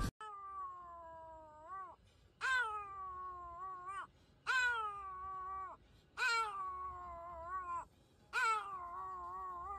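Pomeranian howling: five long howls in a row, each starting high, sliding down and curling up briefly at the end, with short breaths between.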